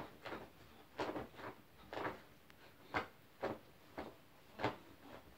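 Poodle pawing and digging at a duvet on a bed: short scratchy rustles of the bedding, about two a second.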